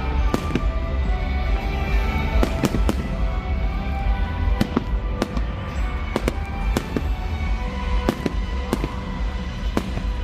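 Fireworks bursting overhead: sharp bangs at irregular spacing, roughly one a second, over music playing along with the show.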